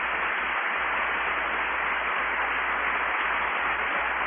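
Church congregation applauding steadily.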